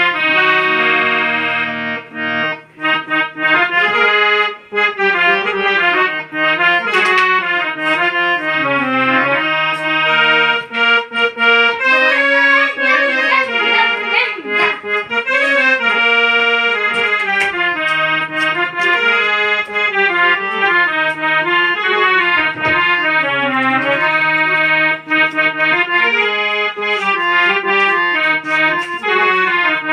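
Harmonium playing a melody of reedy notes over held lower notes, with chords that change throughout.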